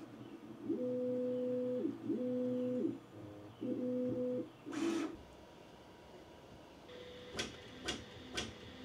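Bambu Lab A1 3D printer's stepper motors whining in three long moves, each tone gliding up at the start and down at the end as the axis speeds up and slows, during its start-up routine before printing. A short rush of noise comes about halfway through, and a few light clicks near the end.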